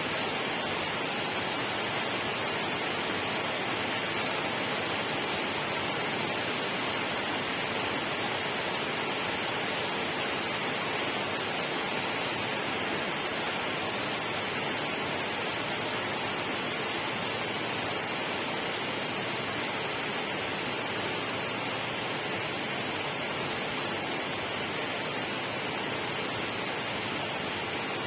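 Steady rushing water, an even, unbroken hiss-like wash with no changes in level.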